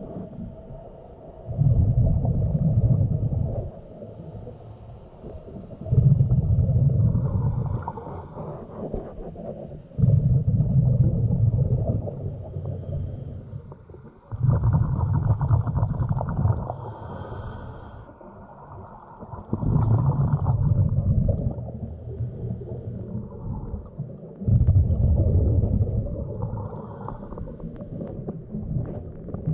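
A diver breathing underwater: exhaled bubbles come up in low rumbling gurgles of about two seconds each, repeating about every four to five seconds, with quieter stretches between.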